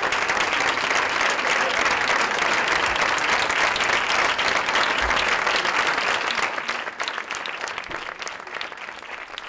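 Audience applauding: dense clapping that thins out and dies away over the last few seconds.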